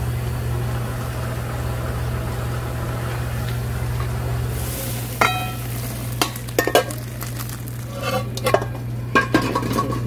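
Kalguksu noodle soup bubbling in a steel wok on a gas burner while a metal ladle stirs it, over a steady low hum. From about five seconds in, sharp metal clinks, one of them ringing, as the ladle and wok knock against a steel bowl while the soup is poured out.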